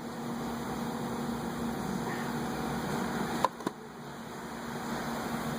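Steady machine hum, like a fan or motor running. A little past halfway there are two sharp clicks about a fifth of a second apart.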